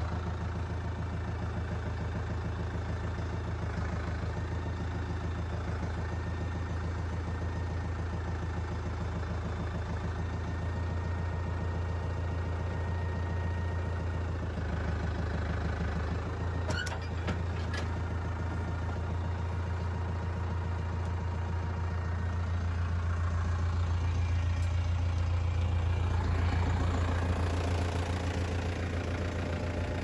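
Tractor's diesel engine idling steadily, with two sharp clicks about 17 seconds in. The engine gets louder for a few seconds near the end, then settles back.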